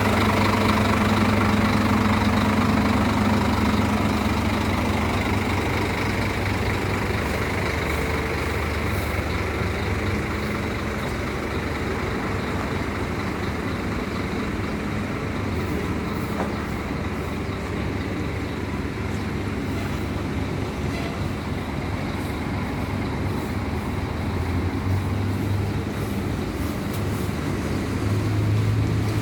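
Heavy tour-bus engine running by the road, with traffic noise. It is loudest at the start, eases off after a few seconds, and swells again near the end as another vehicle comes close.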